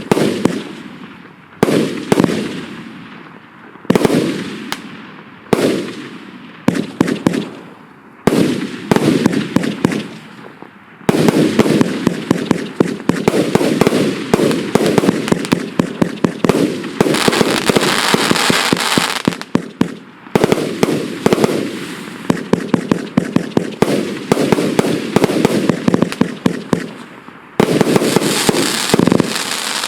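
An 84-shot consumer firework cake (1 to 1.5 inch shots) firing its salvo: for about the first ten seconds, single shots about every two seconds, each a sharp bang trailing off. From about eleven seconds, fast-repeating shots with dense crackling, brightest a little past the halfway point, then another dense run near the end.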